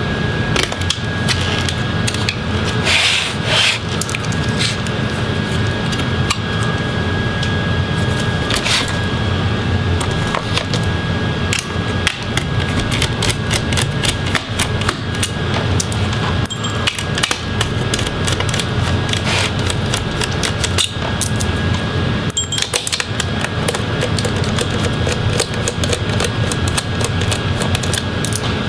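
Small Phillips screwdriver turning out the screws of a laptop's cooling fans: a long run of light clicks and scraping, over a steady hum.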